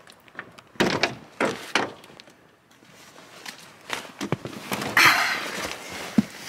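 Driver's door of a Mini Cooper opened by its handle, with clunks and knocks as someone climbs into the seat, and a louder burst of rustling or thudding about five seconds in.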